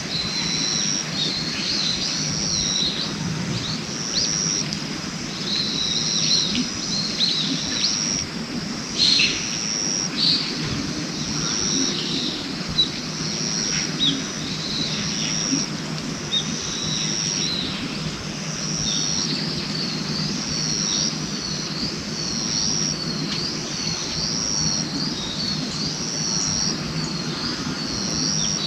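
Birds chirping outdoors: a short high note repeating about once a second, with quicker repeated chirps near the end, over a steady low background rumble.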